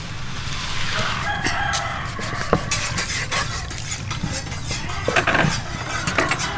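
A rooster crowing in the first couple of seconds, and a few sharp knocks of a meat cleaver cutting raw pork on a wooden chopping board.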